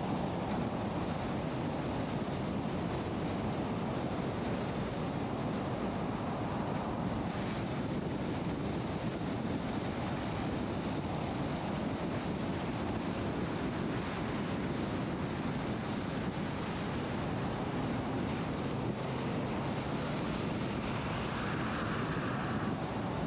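Steady road and wind noise of a car driving at highway speed: an even rush of tyres on the pavement and air past the vehicle, with no engine note standing out.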